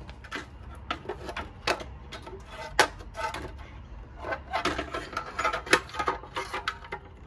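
A timing belt cover being fitted by hand onto an engine: a scattered run of light clicks, taps and scrapes as the cover knocks and rubs against the engine, with a couple of sharper knocks.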